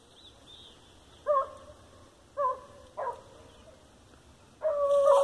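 Hunting dog barking: three short barks, then a long drawn-out bay near the end, the sound of a dog giving voice while trailing game.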